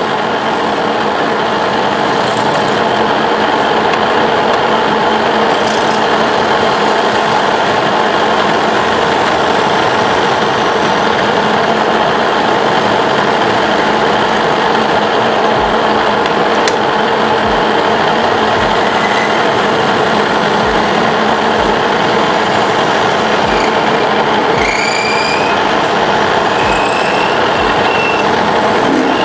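Tube-spinning (flow-forming) machine running, a steady loud grinding, rubbing noise of the forming roller working the metal tube on the mandrel. Near the end come a few short rising squeals, and faint low knocks sound about once a second.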